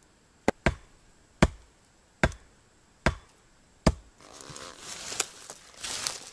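Axe blows striking wooden poles: six sharp knocks, about one every 0.8 s. From about four seconds in, the knocks stop and a gloved hand rustles and scrapes through loose soil and bark chips.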